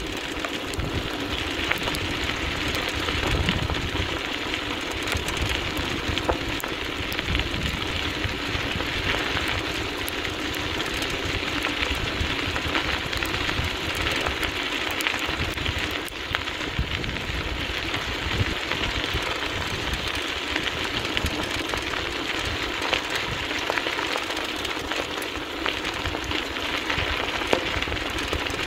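Wheels of a dryland dog rig rolling fast over an unpaved trail: a steady, gritty hiss that never lets up, with irregular low rumbling underneath.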